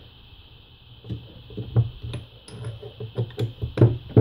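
Irregular small metallic clicks and taps as a screwdriver works against aluminium parts of an electro-hydraulic power steering pump, easing a part into alignment, over a steady low hum.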